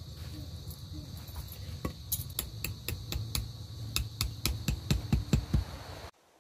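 Hammer driving a tent stake into sand: a quick run of sharp, clinking blows, about three or four a second, starting about two seconds in and cut off abruptly near the end.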